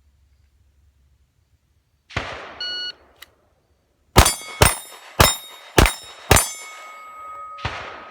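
Shot-timer start beep, then five quick pistol shots about half a second apart, each followed by the ringing of a struck steel plate. This is a full Steel Challenge string, about 3.7 s from beep to last shot. A second noisy burst comes near the end.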